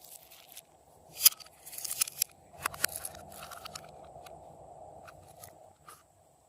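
Slime being worked and mixed by hand, giving irregular sharp crackling clicks and pops, the loudest about a second in, over a faint steady hum.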